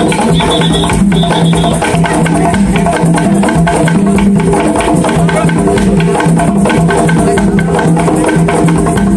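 Live hand drums played in a fast, steady rhythm, with many sharp clicking strikes over a low repeating note.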